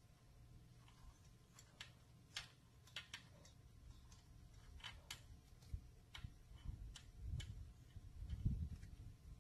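Faint, irregular light clicks and taps from the metal cylinder and its bolts as they are handled and fitted down over the piston onto the crankcase gasket of a two-stroke trimmer engine. Low bumping and rubbing handling noise builds in the second half, loudest near the end.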